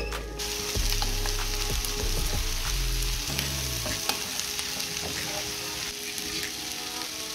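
Sliced onions frying in butter and sunflower oil in a pan: a steady sizzle flecked with small crackles and pops.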